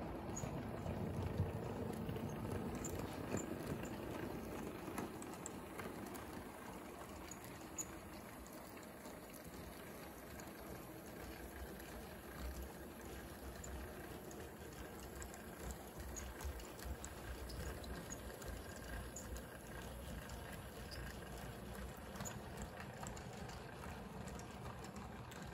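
Faint, steady mechanical running of a brass S scale model Pacific steam locomotive in silent running, with no sound effects playing: the motor and wheels rolling on the track, with an occasional light click.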